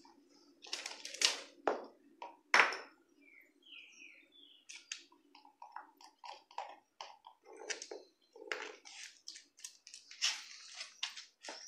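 Large dog gnawing a beef shin (mocotó) bone: irregular crunching and sharp clicks of teeth on bone, the loudest two within the first three seconds.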